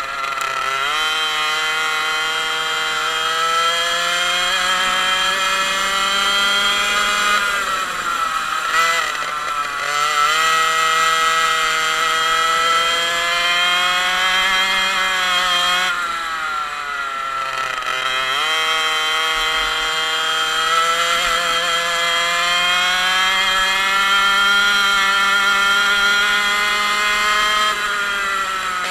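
Onboard sound of a 100cc two-stroke kart engine under racing load. The pitch climbs steadily, drops sharply twice, at about eight and again at about sixteen seconds in, as the kart comes off the throttle for corners, then climbs again each time.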